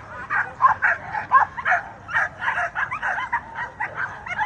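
Many American Pit Bull Terriers barking and yipping at once: a dense, overlapping run of short, high barks and yelps, several a second.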